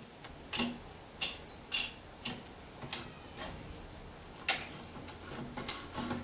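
Light clicks and knocks of a large wooden dowel blank being handled on the pin of a wooden belt-sander jig, its wing nut and lever being worked: a string of separate knocks about one every half second, the sharpest about four and a half seconds in.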